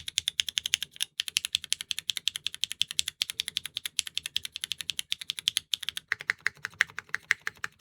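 A mechanical keyboard with Kailh Calligraphy R2 linear switches (MF stems, LCP housings), an aluminium plate and GMK keycaps, its keys struck in a fast, even stream of sharp clacks. About six seconds in, the strikes slow down and the clack turns lower. The sound shifts from press to press: the switches are wildly inconsistent, clacking high on some actuations and dull on others.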